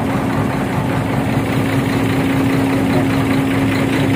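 Truck engine idling steadily, with a constant hum over the rumble.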